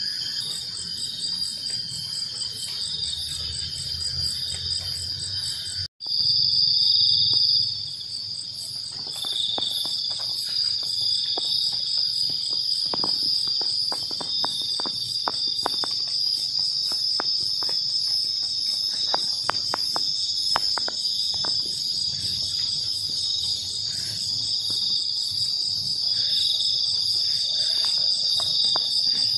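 A night chorus of crickets and other insects, chirring steadily in several high layers with a fast, even pulsing call above them. The sound cuts out abruptly about six seconds in and comes back louder for a moment. Light ticks and rustles are scattered through the middle.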